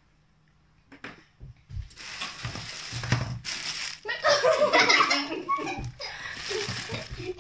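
Cardboard rustling and scraping as boxes are stuffed into a cardboard guessing box, starting about two seconds in and loudest midway.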